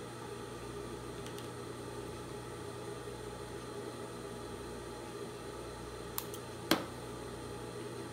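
Steady background hum, with two small sharp clicks about six seconds in as small thread snips are handled on a cutting mat.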